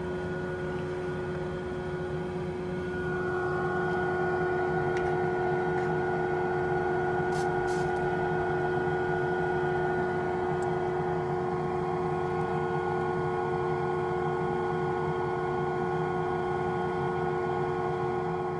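Steady machine hum with several constant tones, a little louder from about three seconds in.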